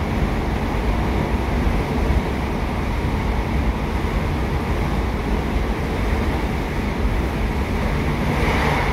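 Steady rumble of a British Rail Class 150 Sprinter diesel multiple unit under way, heard inside the passenger saloon: its Cummins 14-litre turbo-diesel engine and running gear. A brief hiss swells near the end.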